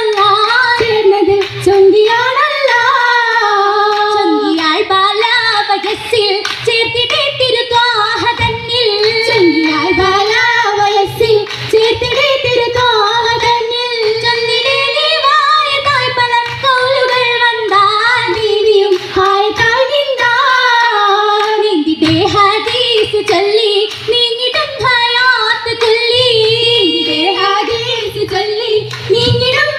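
A group of girls singing a Mappila song for an Oppana dance, the melody carried without a break and amplified through stage microphones and speakers.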